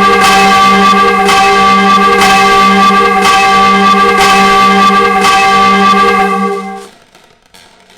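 Peal of six church bells ringing, strikes overlapping in a sustained clang of many tones, then dying away about six and a half seconds in as the ringing ends.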